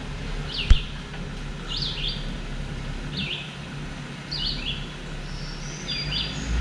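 A songbird repeating short chirping phrases about once a second over a low, steady engine idle, with one sharp click about a second in.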